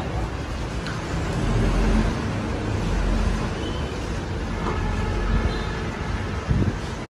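Aftermarket electric strut power tailgate on a Nissan Terra closing under power, over a steady low rumble of background noise.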